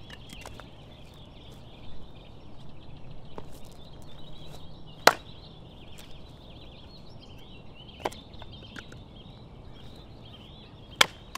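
Axe splitting firewood on a chopping block: three sharp chops about three seconds apart, the middle one lighter.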